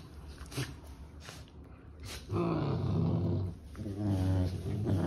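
Puppies play-fighting and growling at each other in rough play. The growls start about two seconds in and come in two long stretches.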